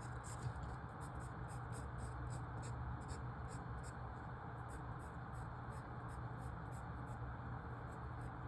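Writing by hand on a puzzle grid: short scratching strokes, about three a second, as the grid is marked up.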